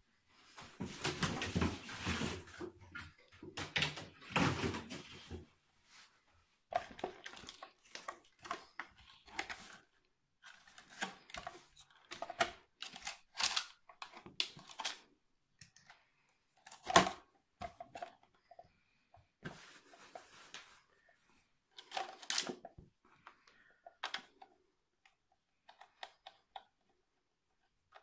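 Hands handling a plastic RC buggy on a table: irregular knocks, clicks and rattles as it is picked up and turned over. The first few seconds hold a denser run of rustling and rattling.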